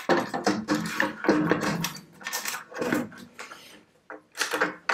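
Aluminium crosscut fence of an Axminster Craft sliding table being handled, set down and slid along the table: a string of metal knocks, scrapes and short squeaky rubs.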